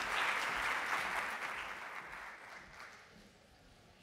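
Audience applauding, the clapping fading away over the second half.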